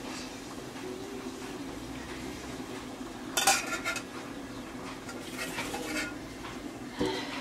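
Steel spoon clinking and scraping against steel bowls and plates as nettle curry is served, with a cluster of clinks about three and a half seconds in and lighter ones near the end.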